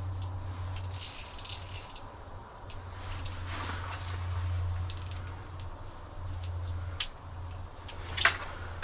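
Fishing reel being cranked to bring a pike up through the ice hole, with rubbing and light clicking from the reel and line over a steady low hum. A short, sharp sound comes near the end as the fish reaches the hole.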